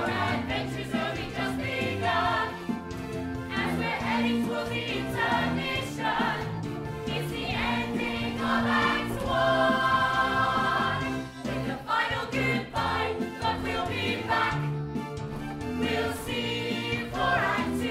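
A musical-theatre ensemble singing together in chorus over a live band accompaniment, with a long held chord about ten seconds in.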